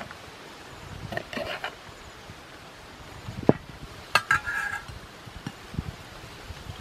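A metal spoon scraping herb paste out of a mortar and knocking against dishes. There are soft scrapes early, then a sharp clink about three and a half seconds in and a cluster of clinks just after four seconds that ring briefly.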